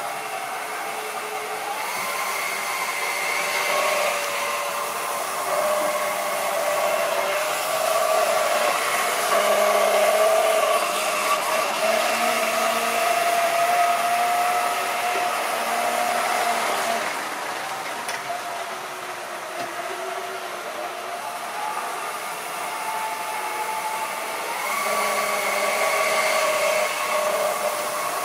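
Model train running on sectional track: the locomotive's small electric motor whines steadily over the rumble of wheels on rail, its pitch wavering and stepping up about two seconds in and again near the end as the speed changes.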